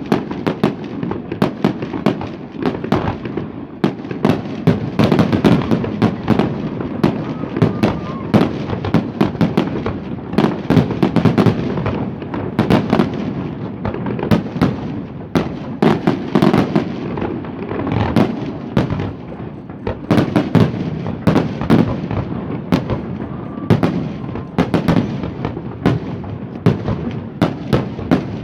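Fireworks display: a dense, continuous barrage of bangs and crackles with a constant low rumble.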